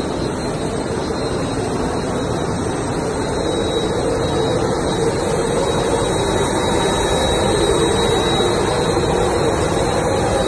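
Jet aircraft engine running steadily, a loud rushing noise with a thin high whine, growing slightly louder toward the end.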